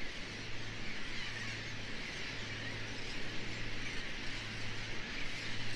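Field ambience of many birds calling together at a distance, a dense, even high twittering with no single call standing out, over a steady low hum.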